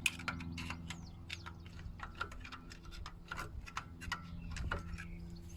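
Irregular small metallic clicks and taps of brake caliper hardware being handled as the rear pads come out, over a steady low hum.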